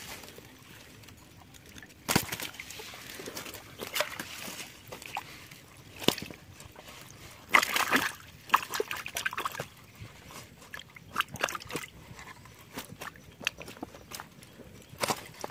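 Water sloshing and splashing in uneven bursts as a fish trap holding snakehead fish is handled and emptied, with sharper splashes about two, six and eight seconds in.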